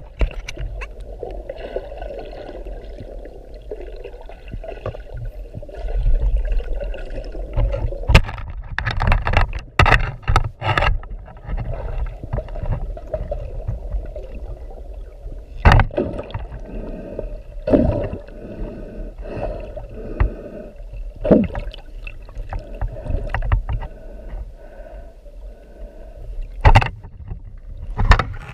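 Muffled water sloshing over a steady low rumble, with irregular sharp knocks and clicks, several of them clustered together.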